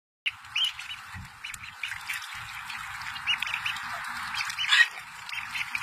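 A group of ducklings peeping and calling continuously, with short high calls following each other several times a second and a louder burst about five seconds in.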